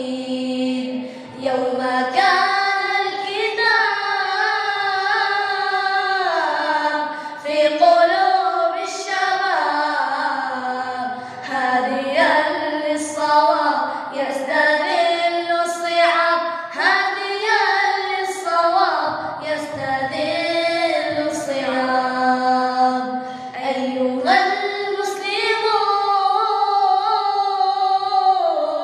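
A single high voice singing an Arabic nasheed unaccompanied, in long ornamented melodic lines with gliding turns between notes.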